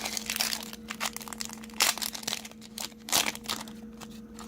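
Foil Pokémon booster pack wrapper crinkling and rustling as it is handled and opened, with louder rustles about two and three seconds in.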